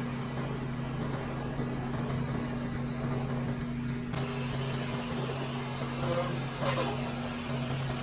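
A motor running steadily with a low, even hum, with a short rush of air about three quarters of the way through.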